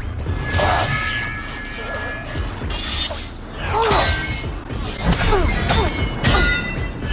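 Sound-designed saber duel: darksaber swings and several sharp blade clashes against a sword, roughly one a second, each with sweeping whooshes, over background music.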